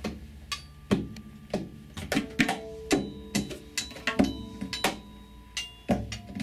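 Free-improvised acoustic music for upright bass, vibraphone and hand percussion: irregular sharp knocks and strikes, about two a second, with short ringing tones between them and some low bass notes.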